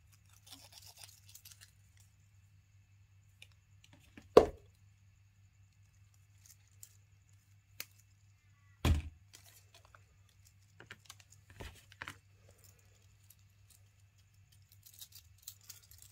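Hands handling a steel watch and a folding pocket knife: a few sharp clicks and knocks, the two loudest about four and nine seconds in, between bits of light rustling.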